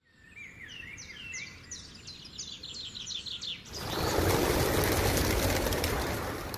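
Small birds chirping in quick, repeated, falling chirps. About four seconds in, a louder, steady rushing noise sets in and covers them.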